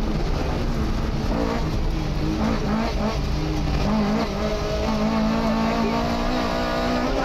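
Lada VFTS rally car's four-cylinder engine running hard, heard from inside the cabin; the pitch rises and drops a few times, then holds steady and high for the last few seconds.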